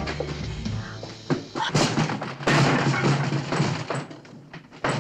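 A wooden panelled door being broken in: a couple of heavy thuds, then a loud crash as it gives way and falls, with smaller knocks after. Background music fades out under it at the start.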